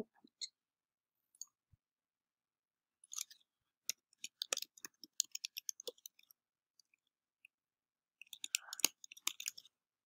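Faint, quick clicks of keys on a computer keyboard as a file name is typed: one run of keystrokes from about three to six seconds in, and a second shorter run near the end.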